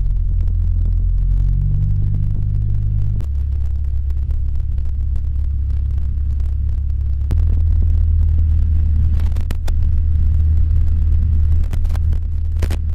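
Piston engine and propeller of a single-engine light airplane, heard from inside the cabin as it taxis: a steady low drone whose note shifts twice as the power is adjusted, with a few sharp clicks in the second half.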